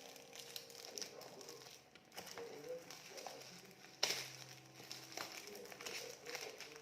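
Gift wrapping and packaging being handled, with light crinkling and rustling and a sharp click or snap about four seconds in.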